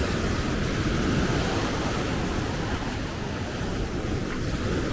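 Heavy ocean surf breaking and washing up the beach, a steady rush of foaming water over the sand.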